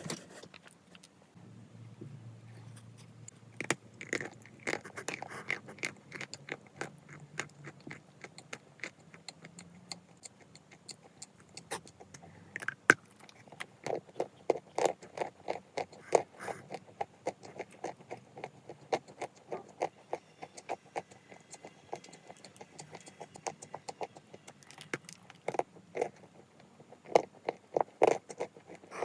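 Chalk being bitten and chewed: rapid, dry crackling and crunching clicks, thickest about halfway through and again near the end.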